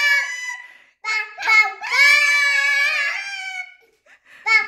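Two young girls imitating a rooster's crow, calling 'tok tok ka tot' in high, drawn-out sing-song voices. One long call fades just after the start, a second begins with a few short syllables about a second in and is held for over two seconds, and quick short syllables start again near the end.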